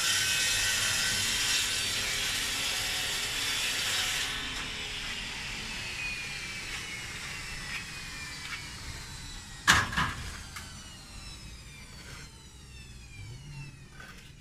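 A power tool runs with a loud, high-pitched noise, then is switched off about four seconds in and winds down, its whine falling slowly in pitch and fading over several seconds. A single sharp knock about ten seconds in is the loudest sound.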